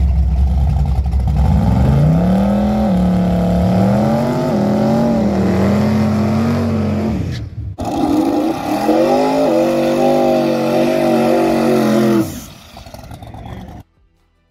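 Drag-racing cars' engines held at high revs during burnouts, two in turn. The first climbs for about two seconds, then stays high with small rises and dips. There is a sharp cut about seven and a half seconds in, and the second engine drops off about twelve seconds in and cuts out a little later.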